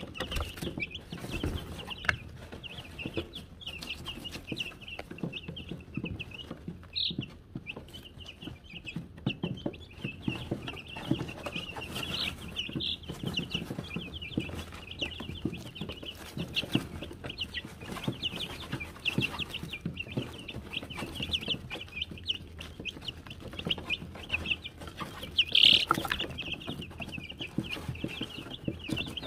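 A brood of Wyandotte chicks peeping continuously, many short high chirps overlapping, with one louder call near the end. Underneath is a soft rustle of pine shavings as they scratch and peck.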